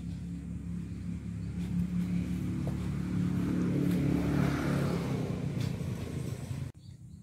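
A motor vehicle passing close by: its engine hum and tyre noise grow louder to a peak just past the middle, then fade, and the sound cuts off suddenly near the end.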